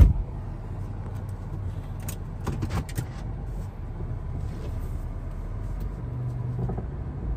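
A 2002 Chevrolet Impala's 3.8 L 3800 V6 idling steadily, heard from inside the cabin. A sharp thump comes right at the start, and a few light clicks follow about two to three seconds in.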